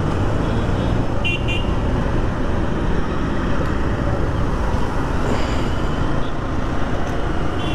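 Motorcycle ride on a road: steady engine and wind noise on the rider's microphone, with a short horn toot about a second and a half in.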